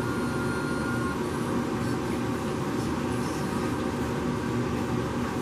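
Steady mechanical drone, even and unchanging in level, with low humming tones, and a faint thin high tone in about the first second.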